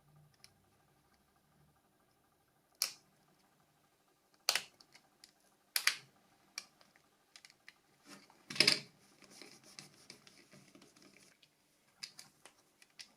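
Sharp plastic clicks and taps, about half a dozen spread apart, the loudest a little past the middle: parts of a Nokia 6233 mobile phone being handled and pressed into its plastic body shell during reassembly.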